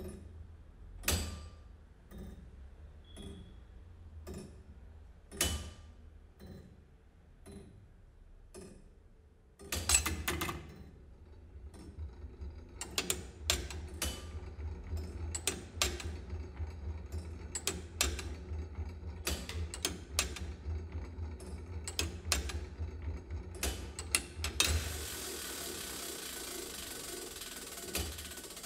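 Mechanical clicking: sparse, irregular clicks and knocks at first, then from about ten seconds in a dense, uneven clatter of clicks over a low hum. Near the end the clicks give way to a steady hiss.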